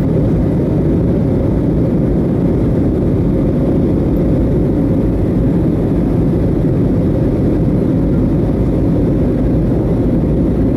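Steady cabin noise of an Airbus A320neo in flight, heard inside the cabin: an even low roar of engines and rushing air, with a faint steady hum.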